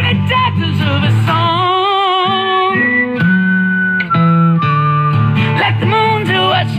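Acoustic guitar being strummed while a man sings a slow melody, holding some notes with vibrato.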